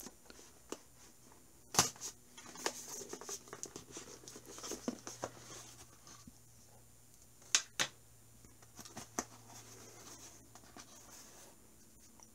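Hands handling a black cardboard presentation box and its packaging, lifting it out and opening its lid: scattered light clicks and taps over soft scraping and rustling. The sharpest clicks come about two seconds in and twice in quick succession about halfway through.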